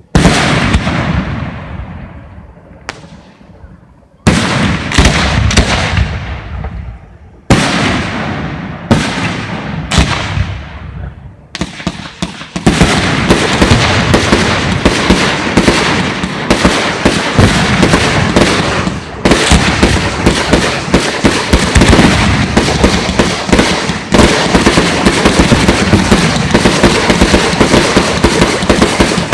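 Fireworks display: single loud shell bursts a second or two apart, each with a long echoing tail, giving way about twelve seconds in to a dense, continuous barrage of rapid bangs and crackling.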